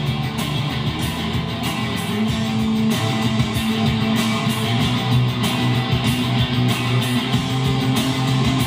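Music with guitar playing from a phone through test speakers driven by a newly built 15-watt-per-channel stereo amplifier kit, both channels working.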